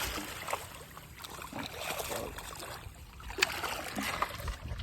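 Water sloshing and trickling around a small boat, with scattered knocks and one sharp knock about three and a half seconds in.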